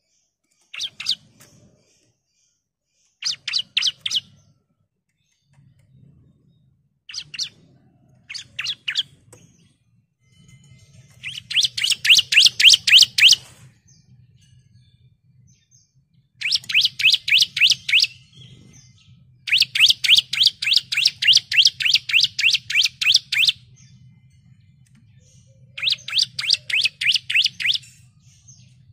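Bar-winged prinia (ciblek) calling in trains of rapid, sharp repeated notes: a few short bursts at first, then longer runs of two to four seconds.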